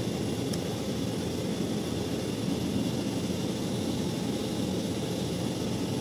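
Steady low machinery drone of air-conditioning units running, with a light click about half a second in.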